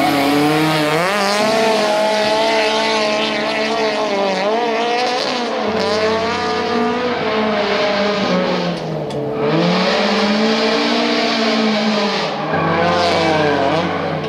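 Toyota AE86 Corolla drift car's engine revving up and down as it slides, with tyres squealing. The revs rise and fall repeatedly.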